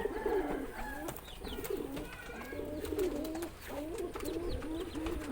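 Several domestic pigeons cooing, their low wavering coos overlapping one another continuously.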